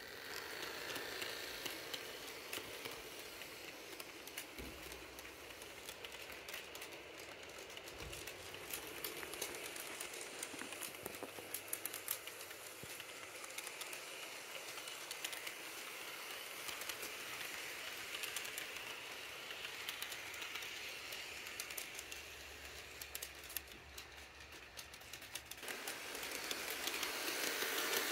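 HO scale model train cars rolling past on the track, a steady rolling rattle with many small clicks. It grows louder near the end as the cars pass close by.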